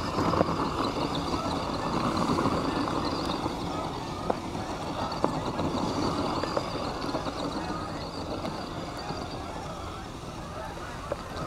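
Radio-controlled scale truck's motor and drivetrain running as its tyres spin and churn through deep snow, with a couple of sharp clicks.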